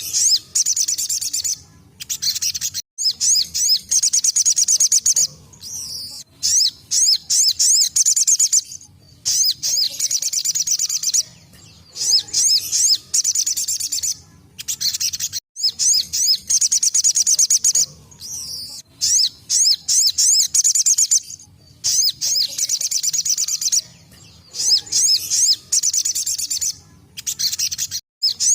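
Little spiderhunter (sogok ontong) singing its rapid 'tembakan' phrases: bursts of fast, high-pitched notes, each a second or two long, repeated over and over with short pauses between.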